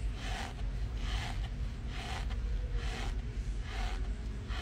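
Mouth chewing a mouthful of dry cornstarch, a soft rasping crunch a little more than once a second, over a low steady hum.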